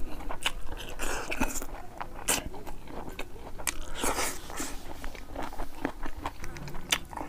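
Close-miked chewing and lip smacking from a man eating rice and boiled fish by hand: many small, irregular wet mouth clicks.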